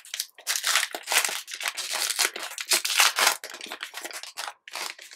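Foil trading-card pack wrapper being torn open and crinkled as the stack of cards is slid out: a rapid run of crinkling crackles, loudest in the middle.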